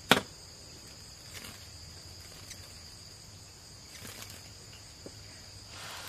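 Steady, high-pitched chorus of insects trilling without pause, with one sharp loud click just after the start and a few faint ticks of handling later on.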